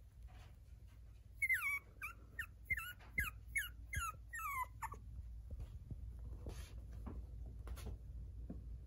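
Six-and-a-half-week-old puppy whimpering: a run of about seven short, high whines, each falling in pitch, between about one and a half and five seconds in.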